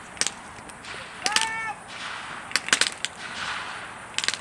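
Gunfire from a WWII reenactment battle firing blanks: single sharp shots and quick clusters of shots, about four groups, the loudest a few rapid cracks near the middle.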